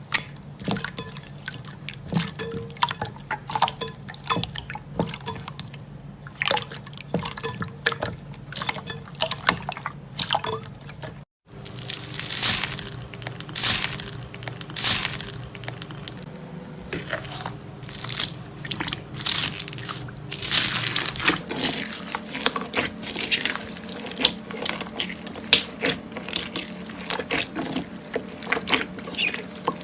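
Slime being squeezed and poked by hand: a dense run of wet clicks and crackly pops, broken by a sudden cut about eleven seconds in.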